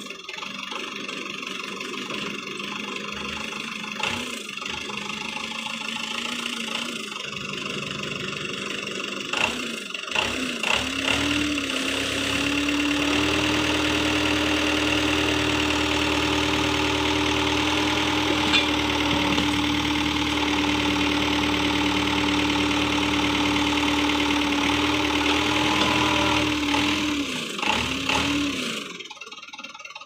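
Backhoe loader engine running at a steady low speed, then revved up about ten seconds in and held at a higher steady speed. Near the end the revs drop and the sound falls away.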